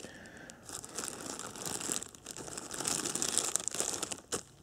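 Thin clear plastic bag crinkling and rustling as hands handle it, with irregular crackles throughout.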